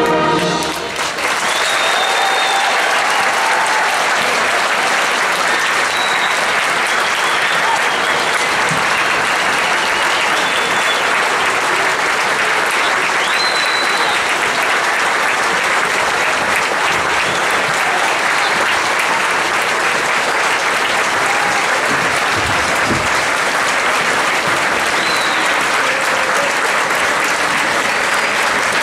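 A school concert band's final chord cuts off about a second in, and a large audience then applauds steadily, with a few cheers on top.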